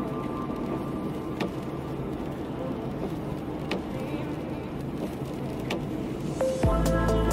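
Car driving on a wet road, heard from inside the cabin: steady engine and tyre noise with a few sharp clicks. Music comes in near the end.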